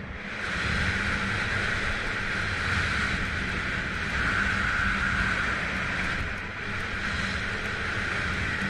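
Telemark skis hissing over groomed snow with wind rushing across the camera's microphone during a downhill run, growing louder about half a second in as the skier gathers speed and then holding steady.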